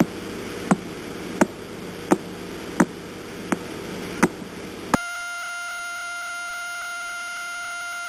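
Radio signal of the pulsar PSR B0329+54 played as sound: seven sharp clicks, about one every 0.7 seconds, over a steady hiss. About five seconds in it cuts to the millisecond pulsar PSR B1937+21, which spins about 642 times a second, so its pulses run together into one steady buzzing tone.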